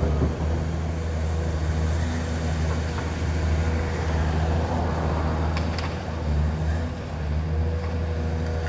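Caterpillar tracked excavator's diesel engine running steadily while it digs debris, its pitch shifting slightly about five to seven seconds in, with a few faint clanks.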